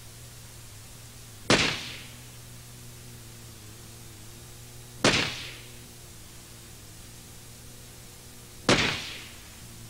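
Three pistol shots about three and a half seconds apart, each with a short ringing tail, over a steady low hum.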